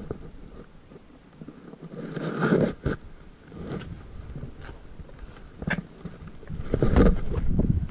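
Footsteps and clunks on loose, weathered wooden floorboards of a derelict railroad passenger car, irregular knocks and scuffs with the loudest cluster near the end.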